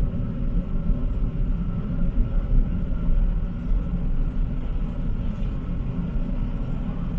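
Low, uneven rumble of a car driving slowly.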